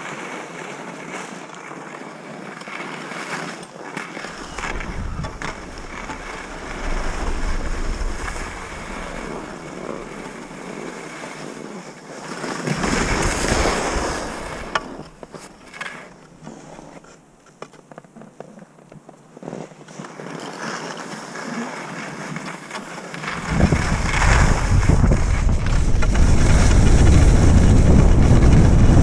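Skis sliding and scraping over groomed snow on a downhill run, with wind buffeting the camera's microphone. The wind rumble comes and goes, eases off briefly in the middle and is loudest over the last several seconds.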